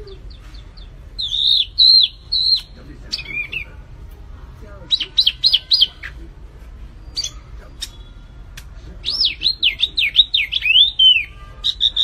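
Small caged songbird singing in short whistled phrases of swooping notes, with a quick run of four notes about five seconds in and a longer rapid up-and-down warble near the end.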